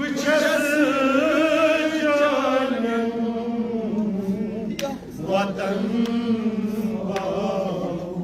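A man chanting a Kashmiri noha, a Shia lament, into a microphone: long held lines with a wavering pitch that fall lower after about three seconds.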